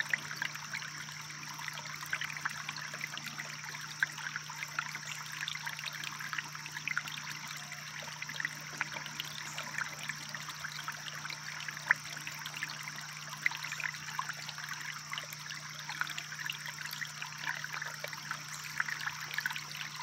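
Shallow babbling brook trickling over a small step of flat flagstone rocks: a steady flow of water with many small splashes.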